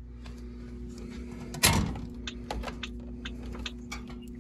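Clicks and light knocks of cables and connectors being unplugged and handled inside a vending machine, with one louder knock about a second and a half in, over a steady low hum.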